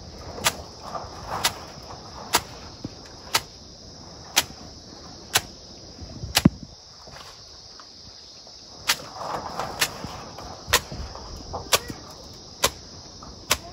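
A bundle of grass slapped against a mud wall about once a second, each stroke a sharp smack that spatters clay slurry onto the wall. The strokes stop for about two seconds midway, then start again at the same pace.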